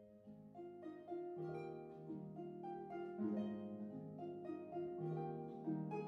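Background instrumental music: a gentle run of plucked notes, harp-like, over sustained lower notes, growing louder over the first second or so.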